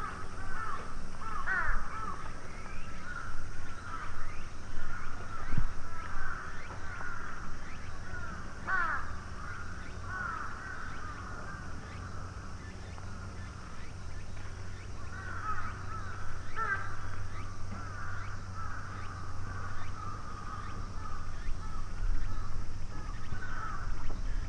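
Crows cawing again and again, several calls overlapping in clusters, over a steady low hum.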